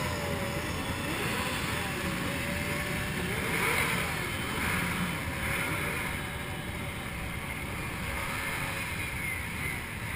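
Motorcycle engines running and revving in a slow parade, their pitch rising and falling, with crowd voices and wind on the microphone; a brief swell about four seconds in.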